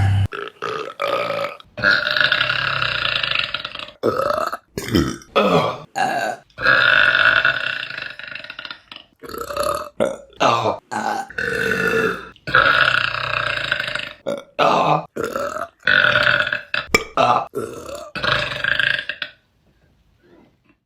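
A run of women's burps one after another, several long drawn-out belches of one to two seconds mixed with shorter ones, dropping to near silence just before the end.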